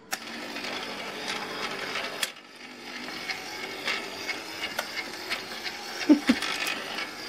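Battery-powered toy fishing game switched on and running: its small motor turns the plastic pond with a steady whirr and light plastic clicking, dipping briefly about two seconds in.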